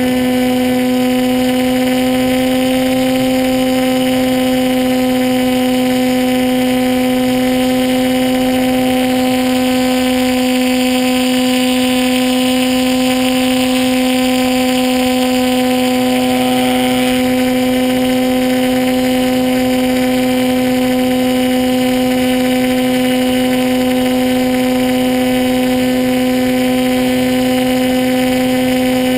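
Onboard sound of a model aircraft's motor and propeller: a steady droning hum that holds one pitch throughout, with air rushing past the camera.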